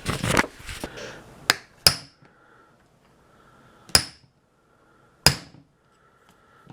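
The cap on the ABS pump motor housing being tapped down into place: four sharp, separate taps with a short ringing tail, after a second of handling noise.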